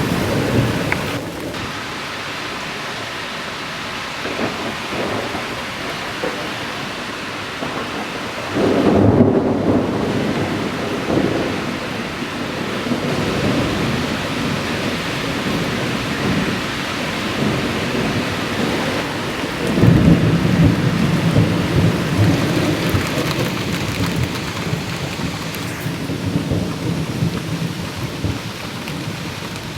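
Steady rain falling through a thunderstorm, with thunder rumbling low; the louder rolls of thunder swell up about nine seconds in and again about twenty seconds in.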